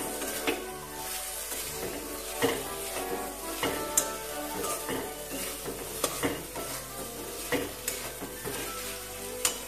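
Spatula stirring and scraping thick cooked banana flower around a metal kadai, with irregular clicks of the spatula against the pan over a light sizzle of the frying mixture.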